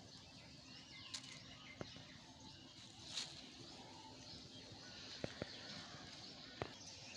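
Faint rustles and a few short light clicks over a quiet outdoor hiss.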